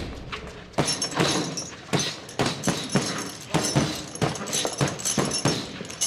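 Punches thudding on heavy bags and pads in a boxing gym: a run of irregular sharp thuds, about two a second.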